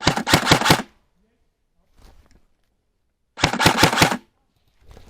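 Airsoft gun firing two short full-auto bursts, about ten shots a second, the first right at the start and the second about three and a half seconds in.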